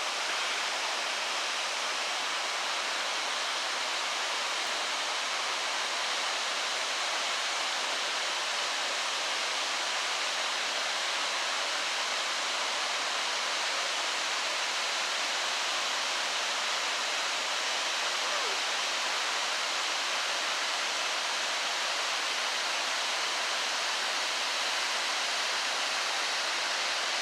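Waterfall rushing steadily: an unbroken, even roar of falling water with no change in level.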